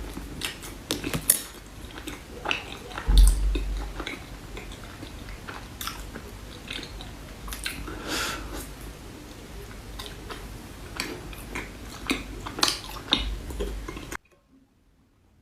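Close-miked eating of chocolate desserts: a spoon or fork clicking and scraping against a dish, with bites and chewing. There is a heavy low thump about three seconds in, and the sound stops abruptly near the end.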